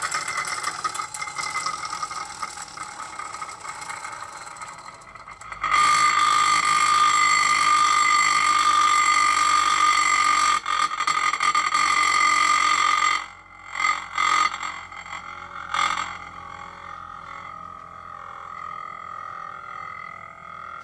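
Wiz-z-z-er friction-powered spinning top whirring on a plate: a steady high hum that fades, comes back loud about six seconds in, breaks off abruptly around thirteen seconds with a few short bursts, then goes on as a quieter hum as the spin runs down.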